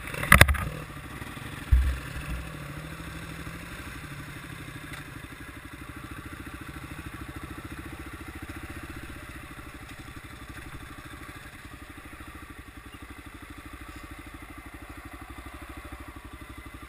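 Kawasaki KLX 650R's single-cylinder four-stroke engine running steadily at low revs, its firing pulses coming fast and even as the bike crawls along a rough trail. A sharp knock about half a second in and a duller thud near two seconds.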